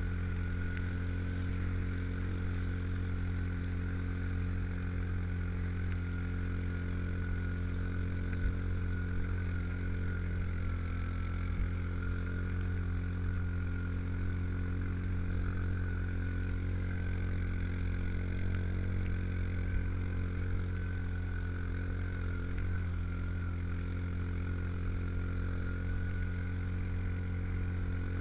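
Yamaha Rhino 700 side-by-side fitted with Camoplast Tatou 4S tracks, driving steadily through snow and heard from on board: its single-cylinder engine runs at an even pitch under a steady high whine.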